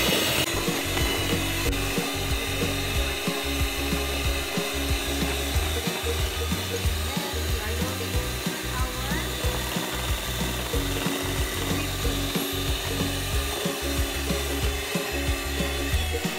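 Electric hand mixer running on low speed, its beaters working cocoa powder into a thick ice cream base in a stainless steel bowl.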